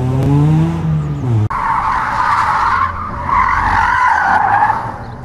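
A rally car's engine revving hard, its pitch climbing, cut off suddenly about a second and a half in. Then loud tyre squeal as a car slides sideways through a corner on tarmac, the squeal wavering in pitch for several seconds and fading near the end.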